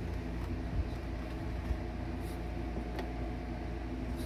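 Steady low mechanical hum, with faint clicks from the transmission cooler line fittings being pushed and worked by hand at the radiator. The clearest click comes about three seconds in.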